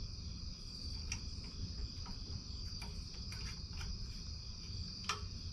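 Crickets chirping steadily over a low background hum, with a few light clicks from handling, the sharpest about five seconds in.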